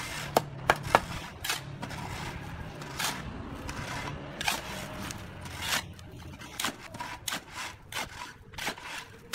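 Steel shovel scraping and chopping through a wet concrete mix of cement, sand and gravel on a concrete floor while the concrete is hand-mixed. The strokes come irregularly, with a few sharp clinks of the blade in the first second.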